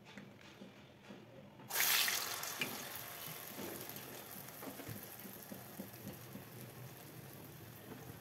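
Urad dal vada batter hits hot oil about two seconds in. The oil bursts into a loud sizzle, then settles to a steady deep-frying sizzle.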